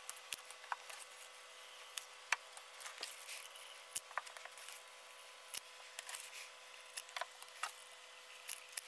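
Faint, scattered clicks and light taps from a caulking gun and thin wooden strips being handled as adhesive is run onto the strips.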